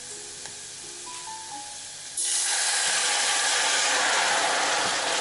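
Diced onion sizzling quietly in butter in a saucepan. About two seconds in, white wine is poured into the hot pan and sets off a sudden loud hiss of sizzling and steam that holds steady.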